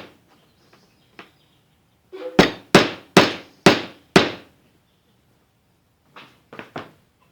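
Hammer tapping a glued nail into a wooden jig: a run of about five sharp strikes roughly half a second apart about two seconds in, then a few lighter taps near the end.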